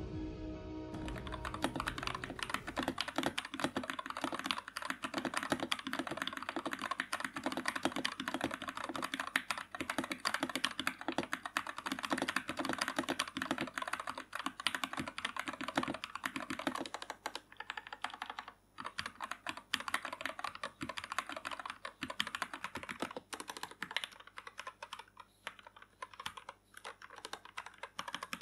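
Fast typing on a custom mechanical keyboard with lubed and filmed Gateron Milky Yellow linear switches: a dense run of key presses that thins to slower, sparser keystrokes a little over halfway through.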